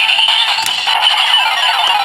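Kamen Rider Geats DX toy transformation belt playing electronic sound-effect music through its small speaker. The sound is thin with no bass and has quick runs of falling notes about a second in.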